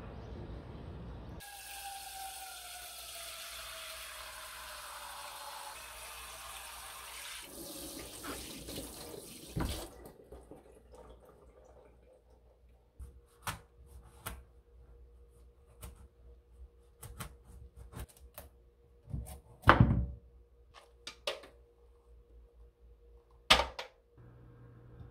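Kitchen tap running over a pumpkin being washed in a stainless-steel sink, with a tone sliding down in pitch in the water sound; the water stops about ten seconds in. Then come scattered clicks and knocks as the pumpkin is cut and scooped on a wooden cutting board, with two heavy knocks near the end.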